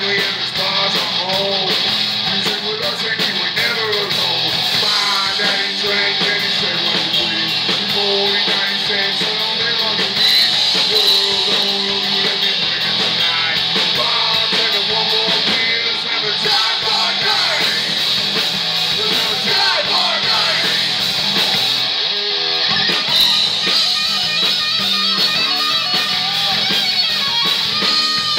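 A live rock band playing loudly: distorted electric guitars, bass guitar and a drum kit, with a singer's vocal over them.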